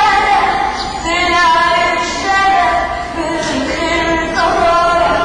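A boy singing into a microphone, with long held notes that bend from one pitch to the next.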